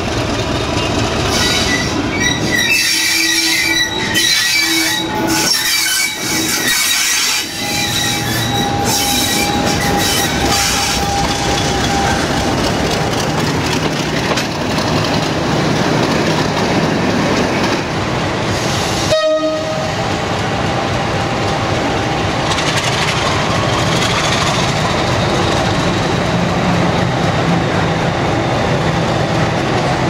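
English Electric Class 50 diesel locomotives running under power, engines and cooling-fan whine loud and steady, with a series of horn blasts in the first ten seconds or so. The sound breaks off abruptly for a moment about two-thirds of the way through.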